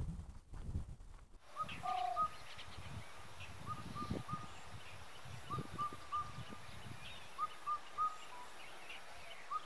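Wind rumbling on the microphone for about the first second. Then a bird repeats a short call of three quick rising notes about every two seconds, over a steady faint high hiss and a few soft low thuds.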